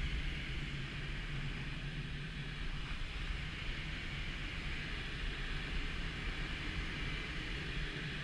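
Steady rush of air over the canopy of a Schleicher K13 glider in flight, heard from inside the cockpit, with a low rumble underneath.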